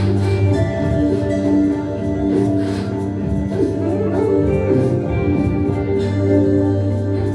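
Live ambient jam music: held, droning tones that sustain throughout, with occasional plucked or strummed notes over them.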